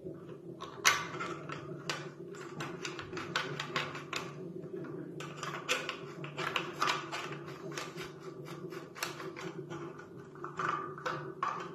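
White plastic toilet fill valve parts being handled and the threaded cap screwed onto the valve body: an irregular run of small plastic clicks and rattles, over a steady low hum.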